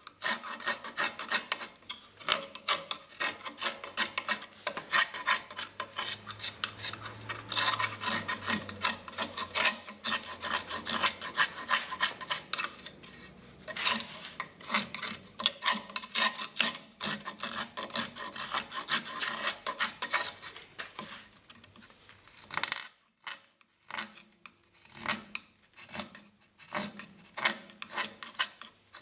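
Narrow-tipped Japanese carving knife (kuri kogatana) paring and scraping the edges of a wooden cup's handle: a long run of quick, dry, scratchy cutting strokes, with a short pause about three-quarters of the way through.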